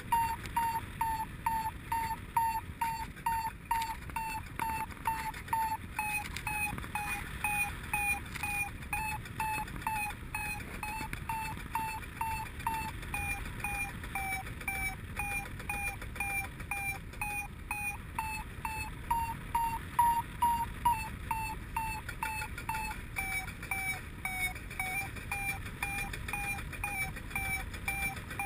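Paragliding variometer beeping steadily, about two to three short beeps a second, its pitch sagging slightly in places: the climb tone that signals the wing is rising in lift. Wind rushes on the microphone underneath.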